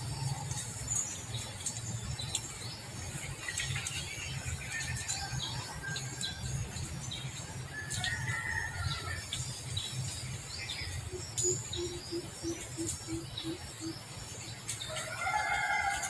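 Outdoor ambience of birds chirping and a rooster crowing, the crow loudest near the end, over a steady low rumble. Midway through, a short run of about ten low, even hoots at about four a second.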